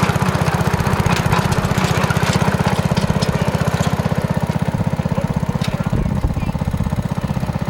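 Small engine of a mini tractor running steadily, with a fast, even firing pulse and light scattered rattles and clicks over it.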